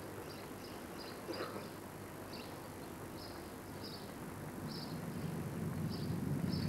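A car's engine approaching on a country road, a low rumble growing steadily louder from about two-thirds in, over short high chirps that repeat every second or so.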